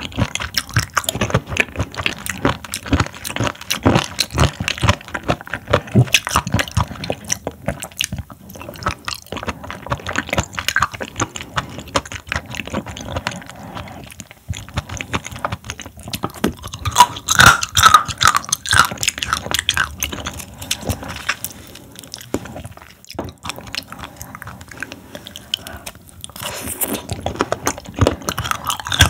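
Close-miked chewing and biting of raw seafood, the horn conch, sea squirt and scallop sashimi of an ASMR eating show: a dense run of wet clicks and crunches, loudest a little past halfway.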